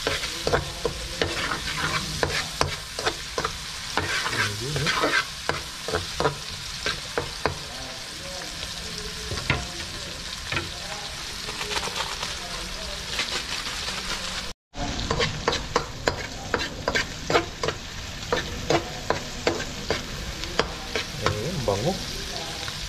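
Ginger, onion and chili frying in hot oil in a pan, sizzling steadily while a spatula stirs them, with many irregular clicks and scrapes of the utensil against the pan. The sound cuts out for a moment about fifteen seconds in.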